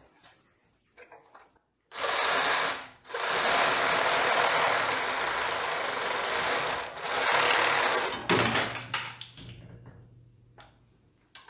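Bauer 20-volt cordless reciprocating saw with a metal-cutting blade running and sawing through an old, heavily corroded water heater anode rod. It starts about two seconds in, breaks off briefly, runs on steadily for about five seconds, then tapers off with a low hum near the end.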